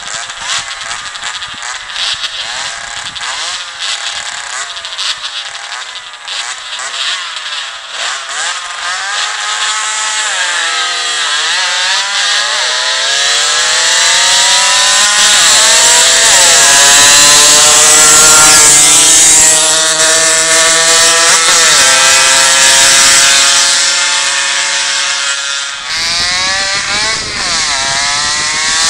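Two racing two-stroke mopeds at full throttle, their high engine notes climbing in pitch and dropping back at each gear change, growing louder as they come closer. The sound dips briefly near the end before an engine note climbs again.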